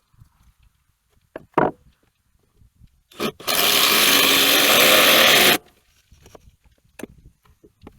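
A few knocks of wooden boards, then a power tool runs steadily into wood for about two seconds and stops abruptly.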